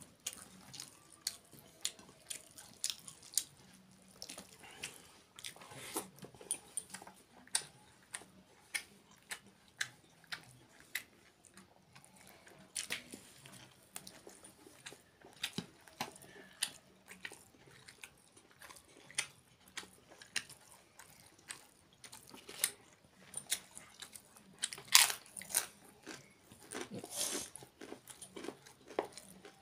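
Close-up eating sounds: a man chewing and biting rice and chicken curry eaten by hand, with many short, sharp, irregular clicks and smacks, a few louder ones near the end.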